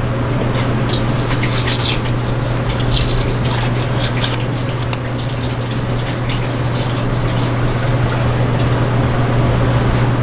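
Steady rush of running water under a constant low hum, with small wet crackles scattered through as the skin of a yellowtail fillet is pulled off with pliers.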